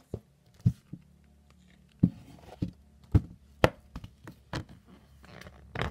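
Handling noise from a picture book and hands moving right at the microphone: a series of irregular knocks and taps.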